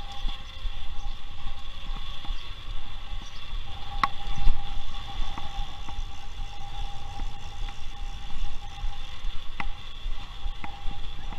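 Riding noise from a bicycle: wind rumbling on the handlebar camera's microphone and tyres rolling over stone paving. Sharp clicks or knocks come about four seconds in and again near the end.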